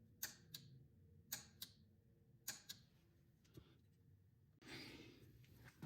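Soft, sharp clicks from a gas water heater's pilot controls as the pilot is being lit: three quick pairs of clicks about a second apart, then a single click, with a faint brief hiss near the end.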